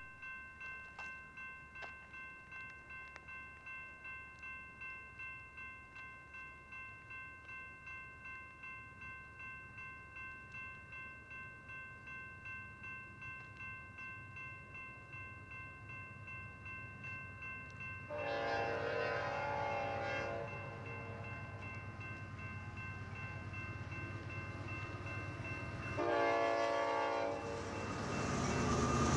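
Grade-crossing warning bell ringing steadily, about two strokes a second, as an approaching freight train led by Norfolk Southern locomotive NS 4154 sounds its horn: a long blast about eighteen seconds in, a shorter one near the end and the start of a third. The low rumble of the train grows louder as it nears the crossing.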